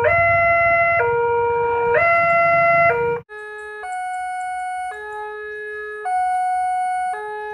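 Electronic railway level-crossing warning siren sounding a two-tone pattern, flipping between a higher and a lower pitch about once a second. It cuts off abruptly about three seconds in, and a quieter two-tone crossing siren with a different pair of pitches takes over at the same pace.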